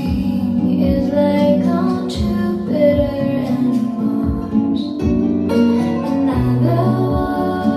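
Music: a woman singing a melody over plucked guitar accompaniment.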